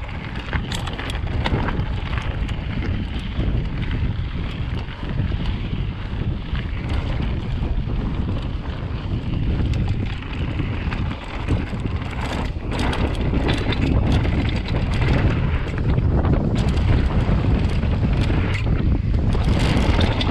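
Wind buffeting the camera's microphone as a downhill mountain bike rolls over gravel and dirt trail, with tyres crunching and many short knocks and rattles from the bike on the rough ground. It grows louder as the bike picks up speed.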